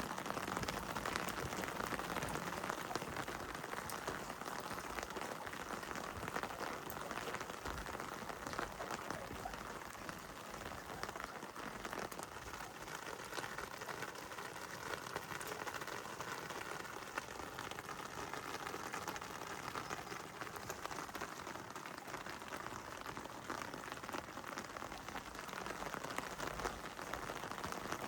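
Heavy rain falling steadily: a dense hiss of drops with many small patters, easing slightly in the middle.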